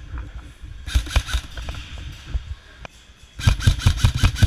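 Airsoft guns firing rapid full-auto bursts: a short burst about a second in, then a longer, louder burst starting near the end.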